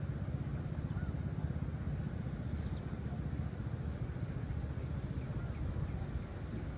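Wind buffeting the microphone: a steady low rumble that rises and falls in small gusts.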